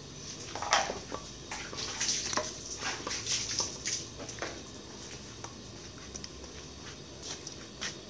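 Kitchen handling sounds: irregular knocks of dishes and utensils with short splashes of water, busiest in the first few seconds and then quieter, scattered clicks.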